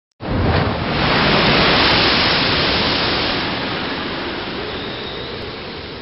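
Stormy, heavy sea surf: a rush of breaking waves that starts abruptly, swells over the first couple of seconds, then slowly dies away.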